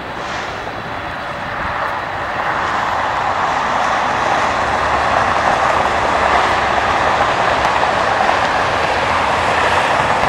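Jet airliner engines at an airport heard from a distance as a steady rushing roar. It grows louder about two seconds in and then holds.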